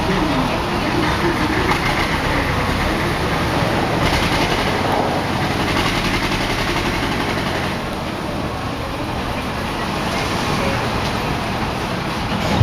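Steady, loud mechanical rumble with a rattling clatter, as of machinery running at a building site.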